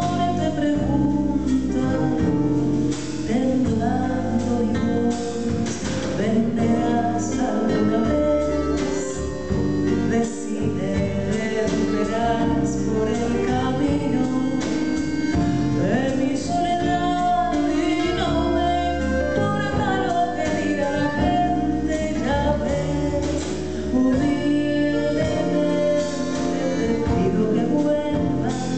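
A woman singing live into a microphone, a continuous sung melody with instrumental accompaniment underneath.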